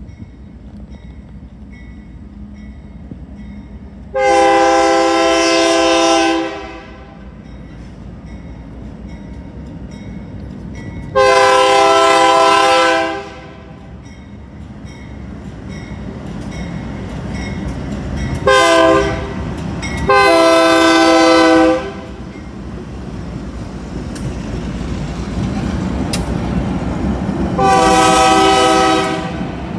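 Nathan K3LA three-chime air horn on a BNSF diesel locomotive sounding the grade-crossing signal: long, long, short, long, then one more long blast near the end. Between the blasts the locomotives' diesel engines rumble steadily louder as the train approaches and passes.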